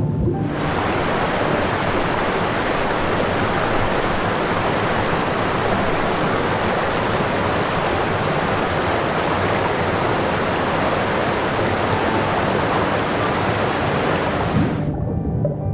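Steady, even rushing noise of water, starting abruptly about half a second in and cutting off suddenly near the end.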